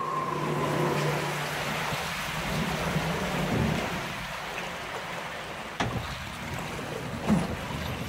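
Water rushing along a flume-ride channel as the ride boat moves through it, a steady wash of noise. Two sharp knocks come near the end, the second louder.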